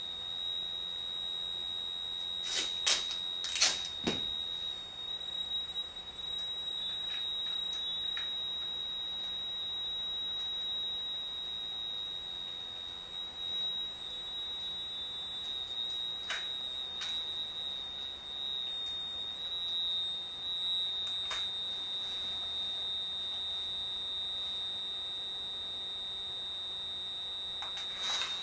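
A steady, high-pitched electronic sine tone, wavering slightly in pitch in the middle, with a few sharp clicks and knocks over it, a cluster about three seconds in and single ones later.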